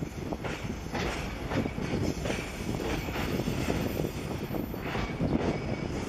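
Container freight train hauled by an EF210 electric locomotive rolling across a steel girder railway bridge: a steady rumble with repeated wheel clacks every half second or so.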